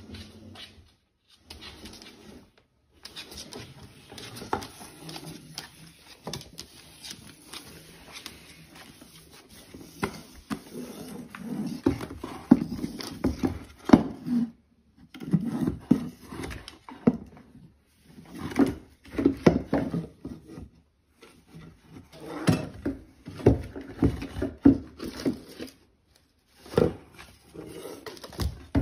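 A pet beaver knocking and scraping a long wooden stick against a wooden cabinet and floor as it builds a dam. The knocks and scrapes come in irregular clusters, with short pauses between them.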